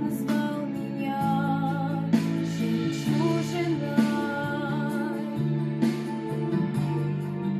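A religious song sung with guitar accompaniment: a singing voice holding wavering notes over plucked guitar chords.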